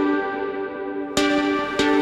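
Background electronic music: held synth chords, with sharp beats striking about a second in and again near the end.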